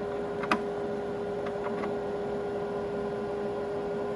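Steady electrical hum with a constant whine from an induction cooktop running at full power, mixed with cooling-fan noise, and one sharp click about half a second in followed by two faint ticks.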